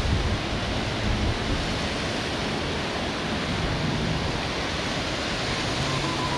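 Wind blowing steadily, an even rushing noise without distinct gusts.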